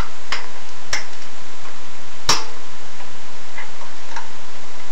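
A few scattered sharp metallic clicks and taps of hand tools on a small engine as its cylinder bolts are undone, the loudest about two seconds in, over a steady hiss.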